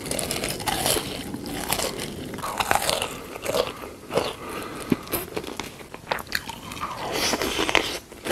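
Close-miked eating of crunchy food: irregular bites and crunches with chewing in between.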